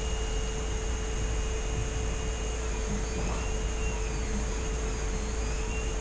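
Steady background hum and hiss with a constant mid-pitched tone, like a fan or other appliance running.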